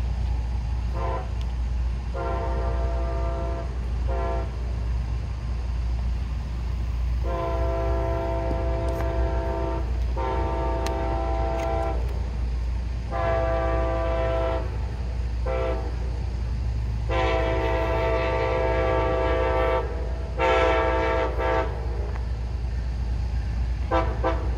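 Locomotive air horn sounding a series of long and short blasts, in the long-long-short-long manner of a train whistling for grade crossings as it approaches, over a steady low rumble.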